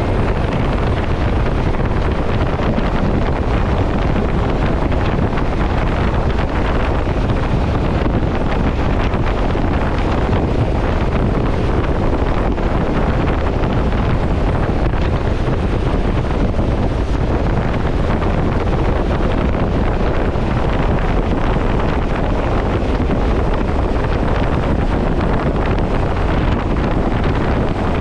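Steady loud rush of wind and engine noise through the open door of a skydiving aircraft in flight, with wind buffeting the microphone.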